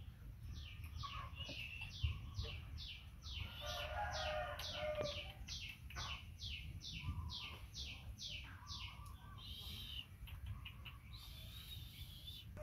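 A bird chirping over and over: short, high, falling chirps about two a second, stopping about nine seconds in. A few lower calls come near the middle.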